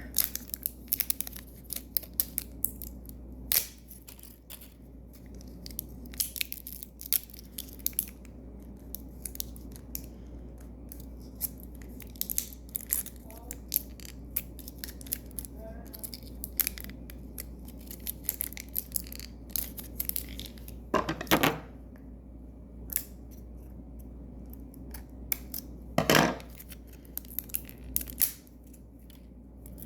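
Packaging wrappers crinkling and being torn open, a stream of small crackles and clicks with two louder rips about five seconds apart in the last third.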